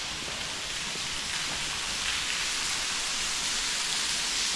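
Steady rain, an even hiss that grows a little louder over the few seconds.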